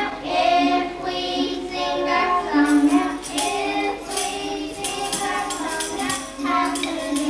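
Children singing a song together, with rhythmic jingling percussion coming in about a third of the way in.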